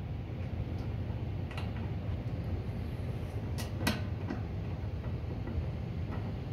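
A ratchet wrench tightening a sensor bracket bolt, giving a few sharp clicks, two of them close together near the middle, over a steady low hum.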